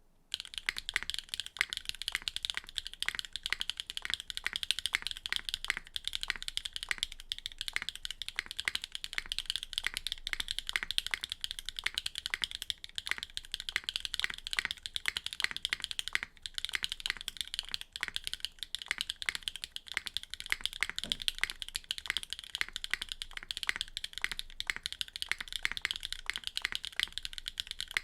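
Fast, continuous typing on a Neo65 mechanical keyboard with a carbon-fibre plate and HMX Retro R switches: a rapid stream of key clacks, with a couple of brief pauses in the second half.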